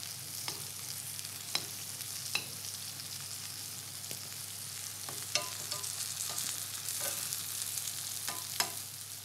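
Sliced leeks sizzling in sunflower oil in a frying pan, with a spoon clicking and scraping against the pan now and then as they are turned over.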